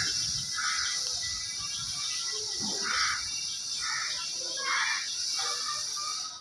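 Chickens clucking: five short, separate calls spaced about a second apart, over a steady high hiss.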